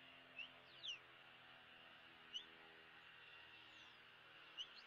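Faint bird chirps: about five short, quick notes rising or falling in pitch, two near the start, one in the middle and two near the end, over a low steady hiss.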